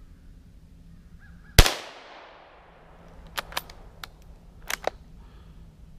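A single .17 HMR rifle shot: one sharp crack about a second and a half in, with a long echo fading away. It is followed by a few quieter clicks and knocks.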